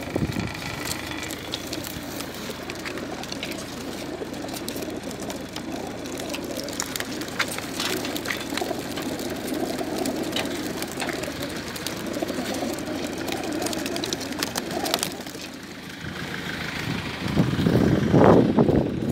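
Many racing pigeons cooing together inside a sealed transport container, a steady low mass of coos with scattered clicks and taps. A much louder rushing noise rises near the end.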